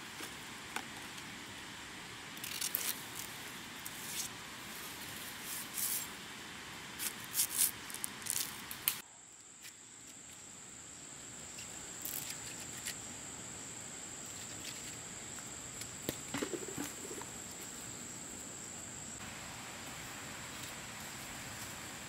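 Short dry crackles and rustles of bamboo pieces and shoot sheaths being handled and peeled, clustered in the first nine seconds with a few more later. From about nine seconds in, a steady high-pitched insect drone runs underneath.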